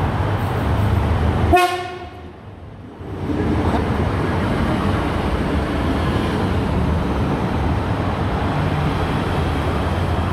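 Electric suburban train arriving at a station platform: a short horn blast about one and a half seconds in, then the steady running noise of the train's wheels and carriages as it rolls past close by.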